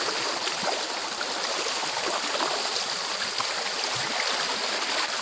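Waterfall water rushing steadily over rocks, an even hiss with no let-up.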